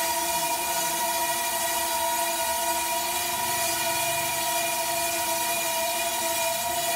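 Horizontal band sawmill cutting through a large log: a steady, high-pitched whine made of several held tones over a constant hiss.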